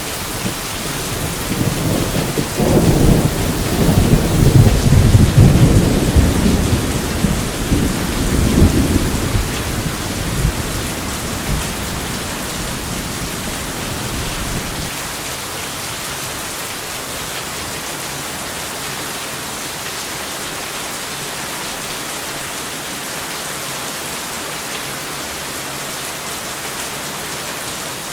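Steady heavy rain with one long rolling rumble of thunder that builds from about two seconds in, is loudest around five seconds, and dies away by about fifteen seconds, leaving the rain alone.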